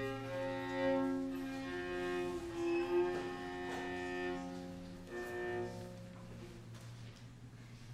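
Slow, quiet music of long held notes that change every second or two, fading away over the last couple of seconds.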